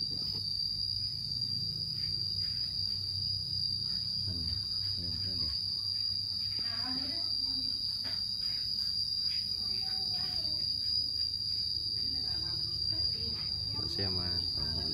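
Insects singing in one steady, unbroken high-pitched drone.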